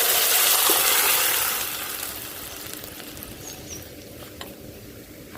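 Liquid rasam mixture poured into hot sesame-oil tempering of mustard seeds and curry leaves, sizzling loudly at first and dying away over about three seconds.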